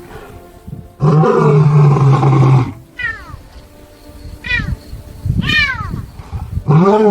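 White lions vocalizing: a long, low groaning call that rises and then holds steady for nearly two seconds, three short higher calls that rise and fall in pitch, then another rising groan near the end.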